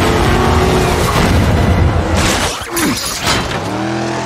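Action-movie car sound effects: a car engine revving over a low rumble, with two short loud noisy bursts about two and three seconds in.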